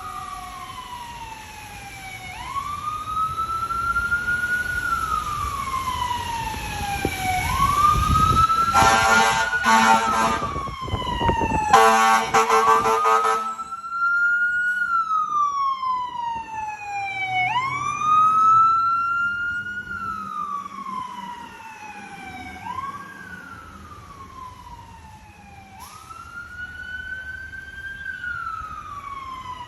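Fire truck siren wailing, its pitch rising and falling every few seconds, with two long blasts of the truck's loud air horn about nine and twelve seconds in.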